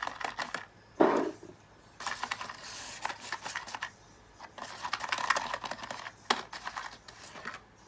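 Runs of rapid light clicks and taps in several bursts, with one short louder sound about a second in, as a baby parrot is hand-fed.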